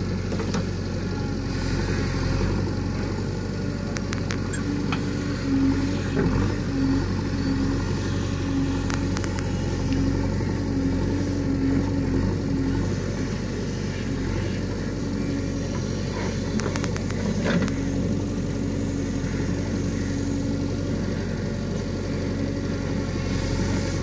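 JCB 3DX backhoe loader's diesel engine running steadily under load as the backhoe digs, with a steady hum that drops in and out and a few sharp knocks, about four seconds in, near nine seconds and around seventeen seconds.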